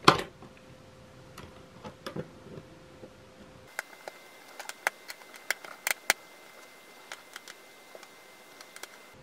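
Small sharp clicks and taps of a precision screwdriver working a screw in a plastic contour gauge, with the loudest click right at the start and a quick run of clicks in the middle.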